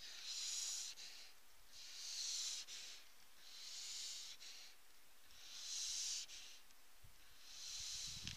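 Grey seal pup breathing through its nose at close range: five soft, breathy breaths, a little under two seconds apart.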